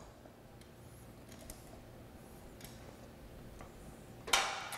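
Faint, sparse clicks of channel-lock pliers working the plastic liquid-tight cord grip on a grinder pump's level sensor housing as it is loosened, then one short, louder rasp near the end.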